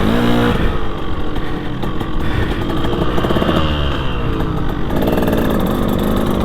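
KTM 200 SX two-stroke single-cylinder motocross engine running hard under riding, its pitch rising and falling repeatedly as the throttle is opened and closed.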